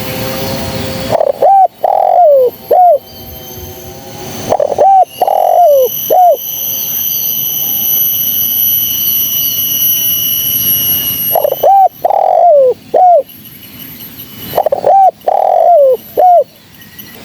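Spotted dove cooing: four phrases of three to four low, bending coo notes, about a second and a half to two seconds each. A steady high-pitched ringing sounds between the second and third phrases.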